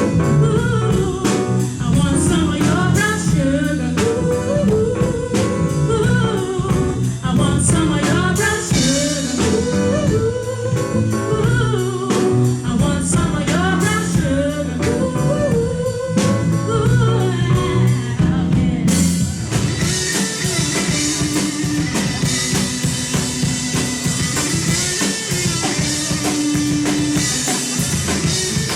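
Rock band music with a singer over guitar and drums. About two-thirds of the way through, the singing stops and the music changes to a different passage with held notes and drums.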